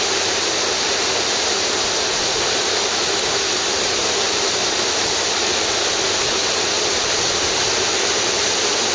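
Flint Creek's whitewater rushing through a narrow rock gorge: a steady, even hiss of fast water.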